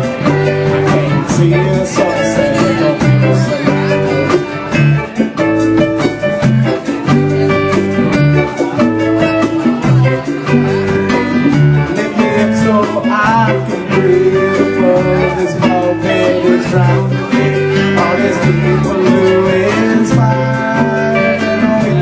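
A live band playing with a steady beat: electric guitar, keyboard and drum kit.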